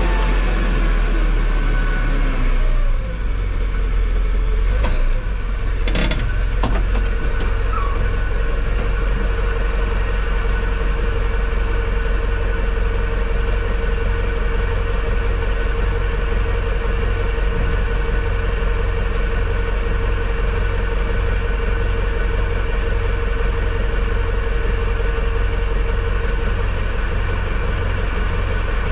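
Tractor loader engine running steadily, heard from inside the cab, its revs falling in the first couple of seconds. A few sharp clunks come about six seconds in, and a steady whine runs over the engine from then until near the end.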